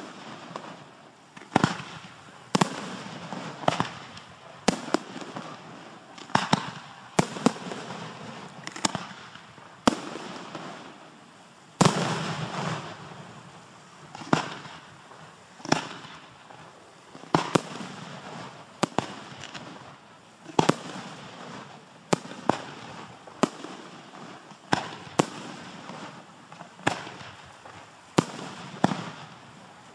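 Display fireworks (aerial shells and cakes) going off in a steady string of sharp bangs, about one every second or two, each followed by a fading echoing rumble. A heavier report about twelve seconds in has a longer rumble after it.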